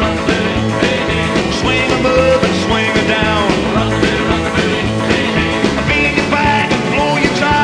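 Loud rock music with a steady beat, guitar and singing.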